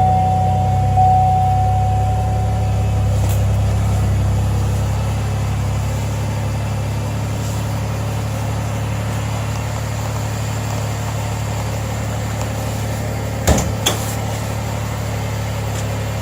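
Car engine idling with a steady low hum. A higher steady tone fades out about three seconds in, and two sharp knocks sound near the end.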